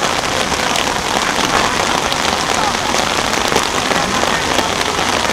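Steady rain falling on an umbrella held right over the microphone: an even hiss dotted with many small, sharp taps of drops hitting the canopy.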